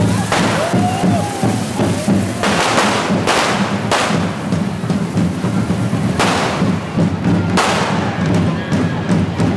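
Hand-held carretilla fireworks on the devils' fire forks hissing in several long spraying bursts, with sharp cracks near the end, over steady drumming from the group's drummers.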